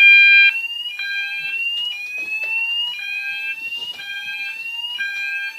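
Fire alarm sounders going off together: one sweeps upward in pitch and resets about once a second, the other pulses a steady tone about half a second on, half a second off. The Roshni sounder is set to the BS sweep and the KAC sounder to the DIN tone. The alarm was set off by deodorant sprayed into a smoke detector.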